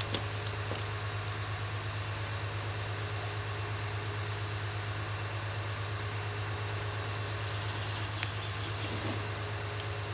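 ДТ1 diesel-electric train standing at a stop with its diesel engine idling: a steady low, rapidly pulsing hum. A single small click about eight seconds in.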